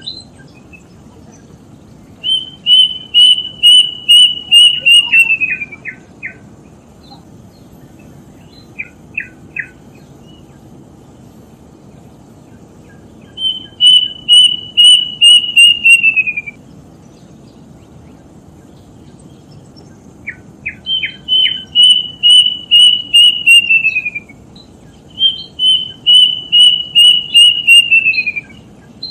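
A bird singing four times: each song is a quick run of clear, repeated notes, about three a second, that drops in pitch at its end. A few short, lower single notes come between the songs.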